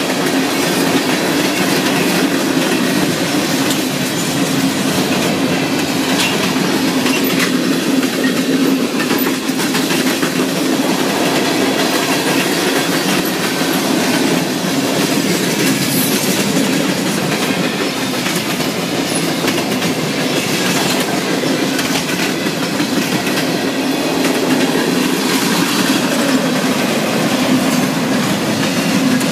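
Freight cars of a CSX mixed freight rolling steadily past: a continuous rumble of steel wheels on rail, with clicking as the wheels cross rail joints.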